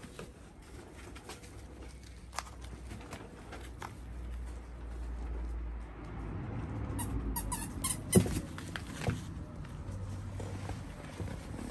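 Labrador puppies wrestling and scuffling on artificial turf: soft scuffs and scattered taps, with a quick run of sharp clicks and a loud thump about eight seconds in.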